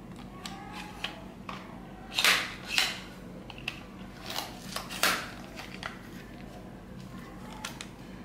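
Plastic parts of a clamp-type phone holder being handled and fitted together: scattered clicks, rattles and scrapes as the arm's joint and knob are worked against the cradle. There are louder scrapes about two, three and five seconds in.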